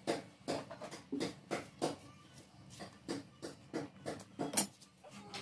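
A knife blade scraping and shaving the edge of a fiber shoe sole in a quick, uneven series of short strokes, about three a second.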